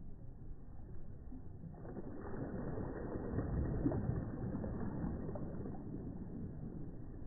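Soft sea waves breaking close up: a low wash of surf that swells about two seconds in as a wave comes in, is loudest a second or two later, and then eases back to a gentler wash.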